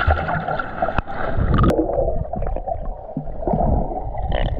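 Muffled water gurgling and sloshing, with a few sharp knocks. It turns duller after about a second and a half.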